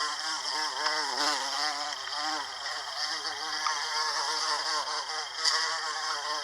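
American bumblebee (Bombus pensylvanicus) buzzing continuously as it forages at Cleveland sage flowers. The wing-beat buzz rises and falls in pitch as it moves, over a steady high hiss.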